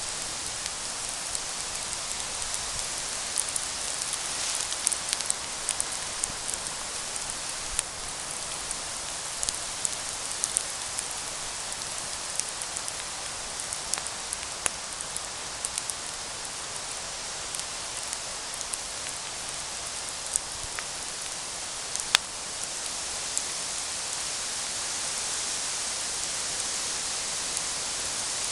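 Campfire burning with a steady hiss and frequent sharp crackles and pops of the burning wood, one louder pop about two-thirds of the way through.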